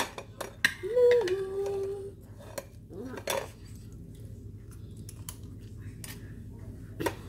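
Cutlery clinking and tapping against plates and bowls during a meal, in scattered short clicks. A short hummed voice sound is heard about a second in.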